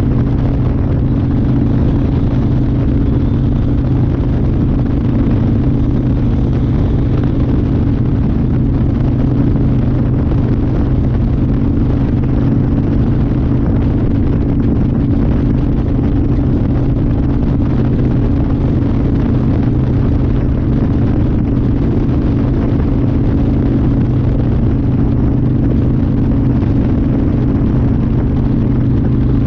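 1992 Harley-Davidson Fat Boy's 1340 cc Evolution V-twin running at a steady engine speed while cruising, its pitch holding constant, with wind rushing over the chest-mounted microphone.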